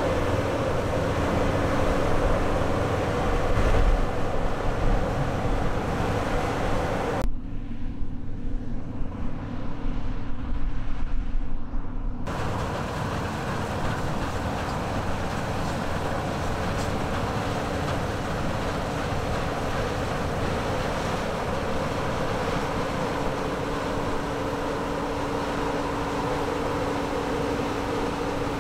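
New Holland CR9090 combine harvester working in the crop: a steady drone of engine and threshing machinery with a held hum. For about five seconds, a quarter of the way in, the sound turns dull and muffled, leaving only an uneven low rumble.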